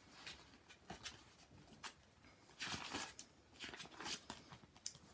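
Faint rustling of paper with a few light clicks and taps, as a paperback picture book is opened and its pages handled.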